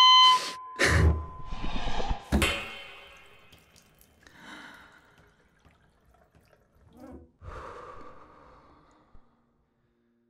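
A steady high electronic tone cuts off within the first second. Then come several sharp gasps and two slower, softer sighing breaths, with water dripping in a shower.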